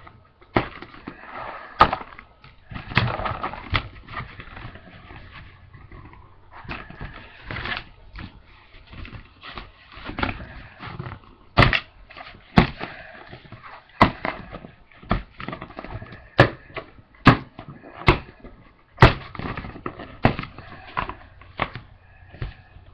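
Handling noise of a flexible glossy placemat being bent and crinkled on a wooden table while hardened hot glue is peeled off it, with a run of sharp clicks and knocks that comes thicker in the second half.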